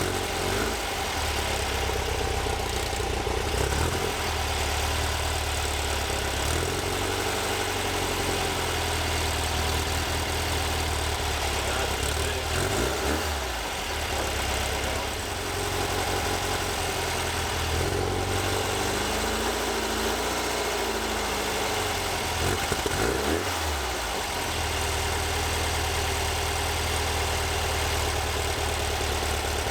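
Air-cooled flat-four engine of a 1964 VW bus running, mostly steady, with the revs dipping and rising again a few times around the middle.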